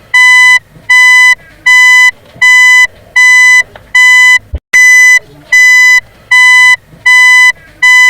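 Vehicle reversing alarm beeping: a loud, steady, buzzy single-pitch beep repeating about four times every three seconds, each beep a little under half a second long. A short click and a slightly longer gap come about four and a half seconds in.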